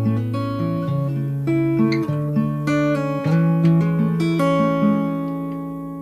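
Background music: acoustic guitar picking notes and chords, ending on a last chord that rings and fades out.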